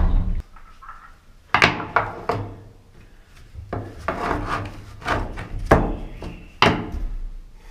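A plastic part being slid and knocked along a flat metal strip by gloved hands: a series of short scrapes and knocks. A louder dull thump comes right at the start.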